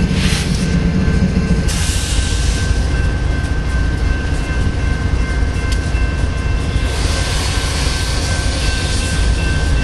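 A GE Evolution-series diesel-electric locomotive standing with its engine running: a deep rumble under two steady high-pitched whines. There are short bursts of hiss about a second apart near the start, and a longer, stronger hiss over the last few seconds.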